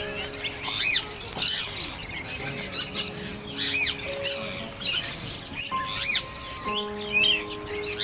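Birds chirping repeatedly, quick high calls that rise and fall in pitch, over background music of long held notes.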